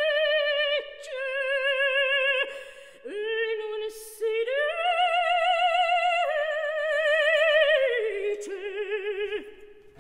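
Operatic soprano singing alone in short phrases of sustained, high notes with a wide vibrato, separated by brief pauses.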